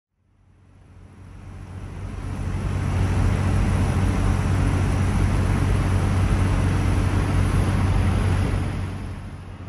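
Steady vehicle running noise: a low engine hum under a broad rush of road or wind noise. It fades in over the first few seconds and dips briefly near the end.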